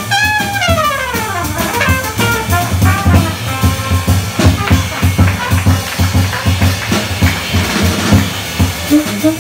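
Live jazz quartet playing fast swing. The trumpet ends its solo with a falling run in the first second or so, then the drum kit and a walking double bass carry on alone. Pitched horn notes come back in near the end.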